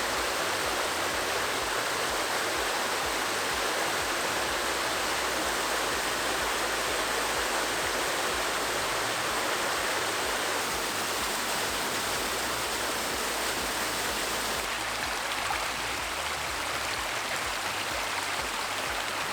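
Creek water flowing, a steady rushing that eases slightly about fifteen seconds in.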